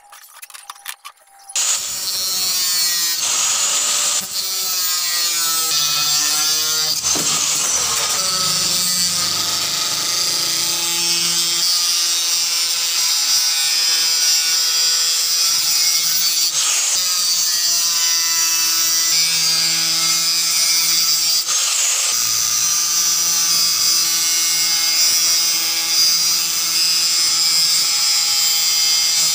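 Angle grinder with a cutting disc slicing through thin galvanized iron sheet, starting about a second and a half in and running steadily. The motor's whine dips and recovers a few times as the disc bites into the metal.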